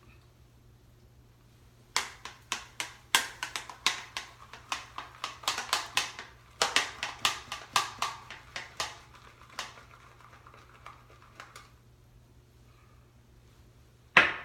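A shaving brush being loaded on a puck of shaving soap: a quick run of wet strokes and taps of the bristles on the soap, about three or four a second, for several seconds, then tailing off. A single sharp knock near the end.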